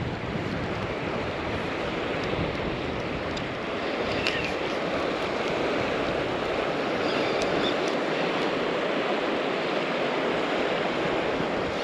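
The South Platte River's current rushing steadily, with wind buffeting the microphone as a low rumble that eases after about eight seconds.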